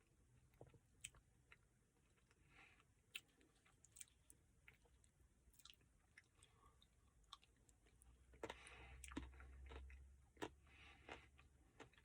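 Quiet, close-miked chewing of a chocolate brownie Blizzard ice cream, with irregular wet mouth clicks and smacks. About two-thirds of the way through, the clicks come thicker over a brief low rumble.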